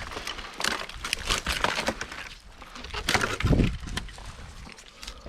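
Rotten wood from a snag cracking and crunching as it is broken and handled, in irregular snaps, with a dull thud about three and a half seconds in.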